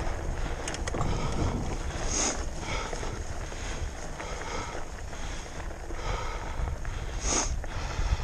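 Wind buffeting a GoPro's microphone, a steady low rumble, with two short hissing sounds about two and seven seconds in.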